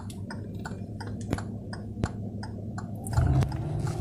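Rapid, regular ticking, about five clicks a second. About three seconds in it gives way to the low rumble of a car engine as the car pulls away.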